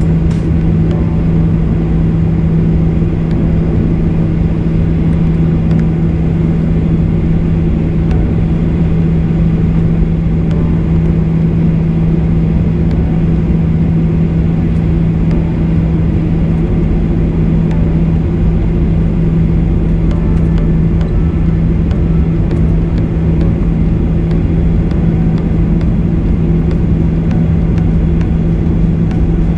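Jet airliner's engines and airframe heard from inside the cabin while taxiing: a steady drone with a strong low hum, even throughout.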